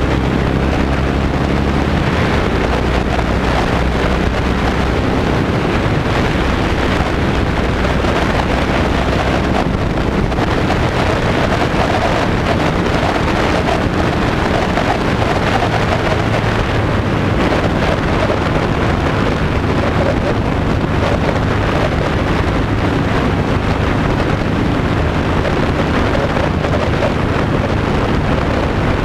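Heavy, steady wind noise buffeting a GoPro's microphone mounted on a moving motorcycle's crash bar, with the motorcycle's engine running underneath.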